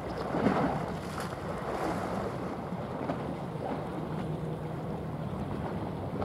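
Container ship passing: the rush of water from its bow wave and wash, with wind on the microphone and a low steady hum underneath. The rush swells louder about half a second in.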